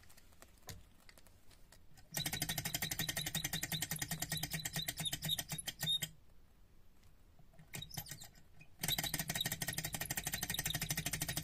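Miniature hot-air Stirling engine, fired by a spirit lamp, running with a rapid, even mechanical clatter. It starts about two seconds in, stops about six seconds in after a few clicks, then starts again near nine seconds and keeps running on its own.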